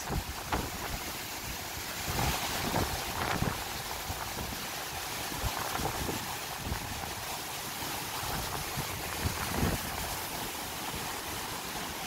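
Strong, gusty wind rushing steadily, with irregular low thumps of wind buffeting the microphone.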